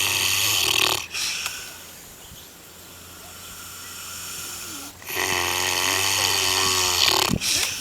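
Pig snoring: a loud, buzzing snore ending about a second in, a quieter breath, then another loud snore from about five seconds in.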